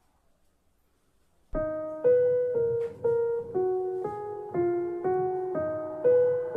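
Near silence, then about a second and a half in a piano melody begins: single notes struck evenly, about two a second, each ringing and fading before the next.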